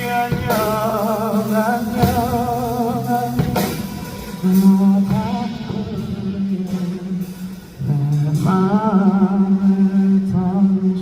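Live band music from a pop ballad: a male voice holds long notes with a wavering vibrato over guitar and a steady low accompaniment, with a drop in loudness just before the last held phrase starts near the end.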